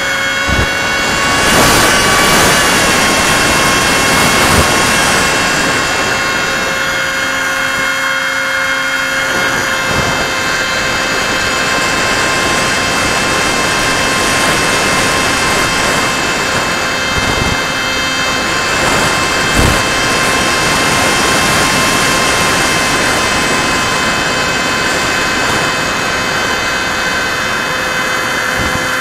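Battery-electric motor of a foam radio-controlled F-22 model whining steadily in flight, heard from the camera on board the plane, with rushing airflow over the airframe and a few brief knocks. The whine's pitch settles a little lower in the first couple of seconds, then holds.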